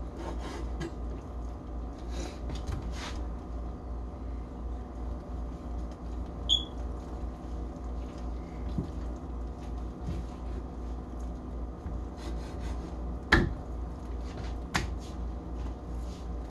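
Quiet kitchen handling sounds as raw chicken breasts are handled on the counter, with a brief high squeak about six seconds in and two sharp knocks near the end, over a steady low hum.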